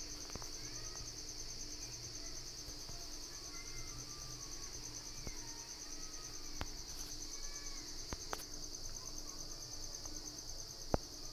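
Steady high-pitched insect trill, like crickets, in the background. A few faint clicks, with a sharper one near the end.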